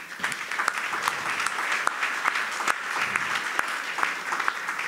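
Audience applauding: many people clapping together in a steady, dense patter.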